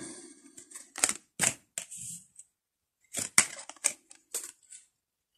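Tarot cards being handled and laid down on a hard tabletop, giving a series of sharp, irregular clicks and light taps.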